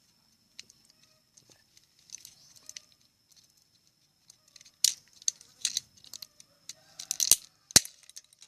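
Plastic housing and small parts of a washing-machine timer being handled and pried apart by hand: scattered clicks and rattles, with a few louder sharp clicks in the second half.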